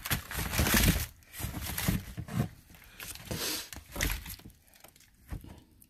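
Sandals and their packaging rustling and knocking as they are handled and pulled from a cardboard box, in irregular bursts that thin out toward the end.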